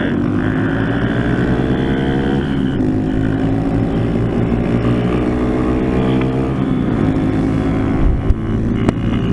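Honda Grom's small single-cylinder engine accelerating under load while riding. The engine note climbs steadily, drops once about two-thirds through at an upshift, then climbs again, with a short knock near the end.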